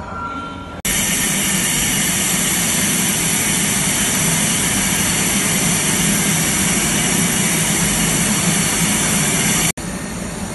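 Kochi Metro train moving along a station platform: a loud, steady rumble and rush of noise that starts abruptly about a second in and cuts off abruptly near the end.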